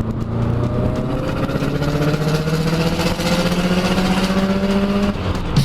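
A vehicle engine running steadily, its pitch rising slowly as it speeds up, then changing abruptly near the end.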